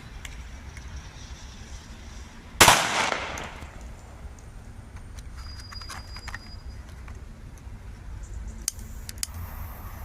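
A single loud firecracker bang about two and a half seconds in, its echo dying away over about a second, over a low steady background rumble. Two faint sharp cracks follow near the end.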